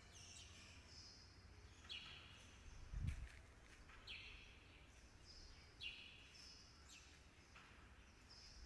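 Faint bird calls: short, high chirps sliding downward, repeated every second or two. A soft low thump about three seconds in.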